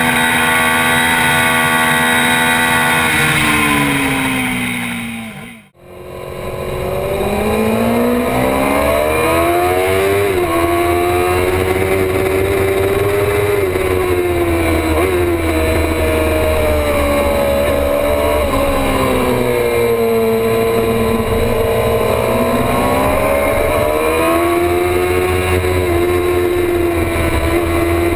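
Sport motorcycle with an aftermarket race exhaust, ridden hard, its engine note rising and falling as it accelerates and slows. About six seconds in the sound fades out briefly and a second run fades back in, its pitch climbing and dropping several times.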